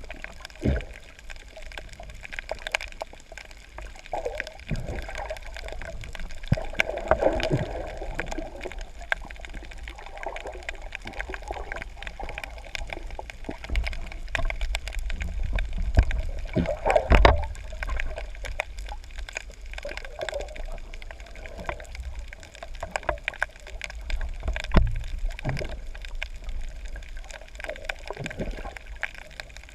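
Water gurgling and sloshing around a spearfisher's GoPro camera, with scattered clicks and irregular swells, the loudest about seventeen seconds in.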